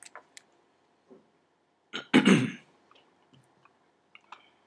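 A man clears his throat once, about two seconds in, with a few faint clicks before and after it.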